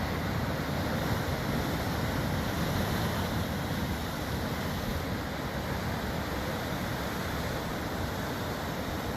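Sea surf washing onto a beach: a continuous, even rush of breaking waves that swells and eases gently.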